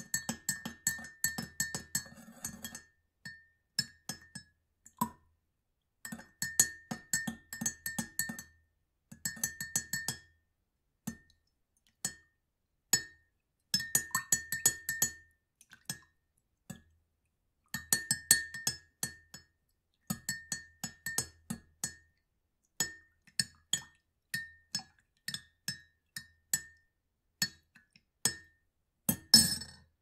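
A spoon stirring water in a drinking glass, clinking rapidly against the glass wall with a brief bright ring on each tap. It comes in runs of a second or two separated by short pauses, grows sparser toward the end, and finishes with one louder clatter.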